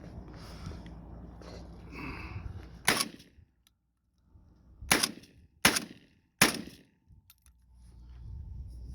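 JTS M12AR 12-gauge semi-automatic shotgun firing four shots, the first about three seconds in and the last three in quick succession.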